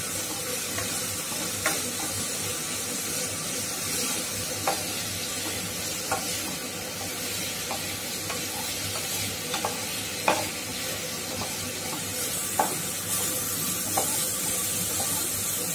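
Chopped cabbage, carrot, onion and green chilli sizzling steadily in oil in a nonstick pan while being stirred with a wooden spatula, with occasional sharp knocks and scrapes of the spatula against the pan.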